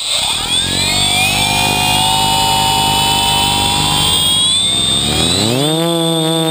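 Quadcopter's electric brushless motors and propellers spinning up from a standstill into a steady whine. About five seconds in, the pitch rises to a higher steady tone as the throttle is raised for takeoff.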